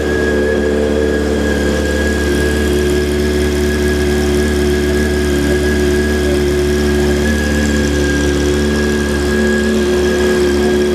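Honda CBR600 F4i inline-four engine idling steadily, with no revving, and a thin steady high whine running alongside.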